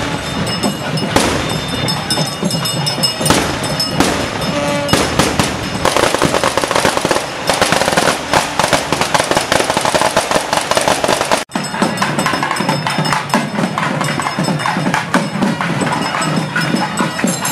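Loud festival music with drumming, mixed with rapid crackling like a string of firecrackers that is densest in the middle. The sound drops out for an instant about two-thirds through, then the music and drumming carry on.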